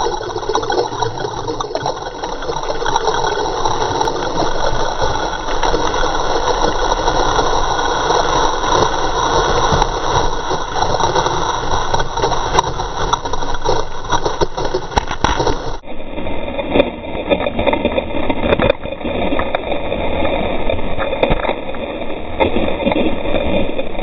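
Breaking surf rushing and churning over a handheld GoPro as a wave barrels over a bodysurfer: a steady, loud wash of water with small knocks and splashes. About 16 seconds in, the wash turns duller.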